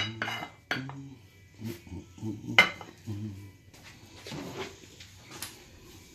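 Ceramic ramekins and plates clinking as they are set down on a steel counter: a few sharp knocks, the loudest right at the start and another about two and a half seconds in.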